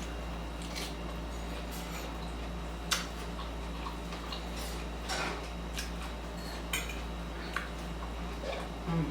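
Cutlery clicking and scraping against a dish while eating salad: a scattering of sharp clicks, the loudest about three seconds in.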